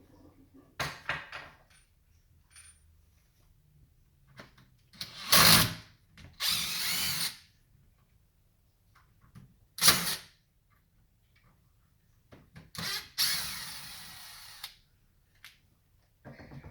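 A cordless power drill or driver running in several short bursts, the sound of door-lock screws being backed out to take the lock off.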